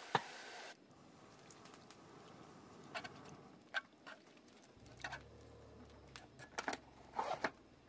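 Quiet, scattered light clicks and taps of chopsticks stirring burdock strips in a small pot on a camp stove.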